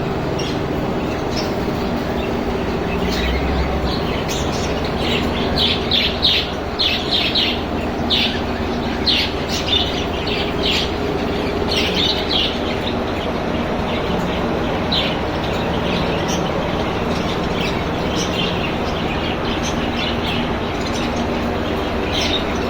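Many caged birds chirping in short, high, repeated calls, busiest in the middle, over a steady low hum.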